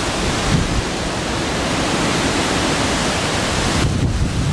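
Gale-force wind blowing hard, a loud steady rushing with gusts buffeting the microphone; the higher hiss drops away about four seconds in.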